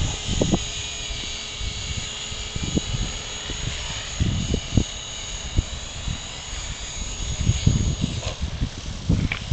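Walkera V400D02 electric RC helicopter hovering low over the ground with a steady high whine from its motor and rotors. It is on a fading battery and being brought in to land. Gusts of wind buffet the microphone.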